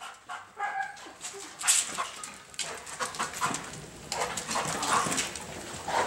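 German shepherd detection dog whining softly as it pulls on its leash to work the scent boxes, with scattered clicks and scuffs.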